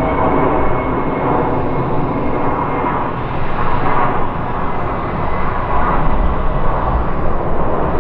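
Jet engines of an Airbus A330-300 airliner coming in to land, a steady loud roar with a faint high whine over it in the first few seconds.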